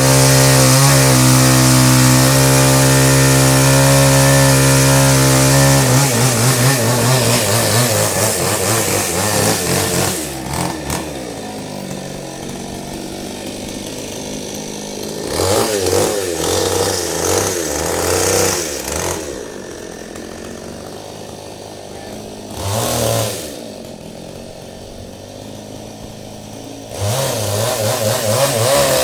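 Chainsaw running at high speed, then dropping to a lower, quieter speed and being revved up several times in short bursts.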